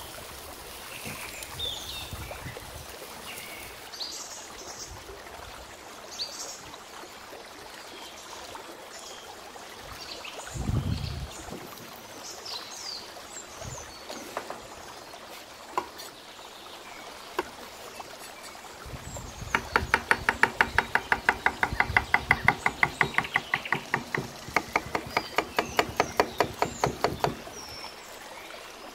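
Knife chopping vegetables on a wooden cutting board: a quick, even run of sharp chops, about five a second, for some eight seconds in the second half. Birds chirp faintly in the first few seconds.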